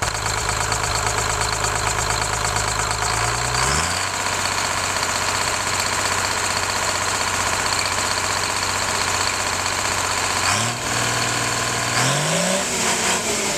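An engine running, its speed rising about three and a half seconds in, dipping and climbing again around eleven seconds, and rising once more before it starts to fall near the end. It is being run well above its usual working speed, by the account that it normally runs at half that speed.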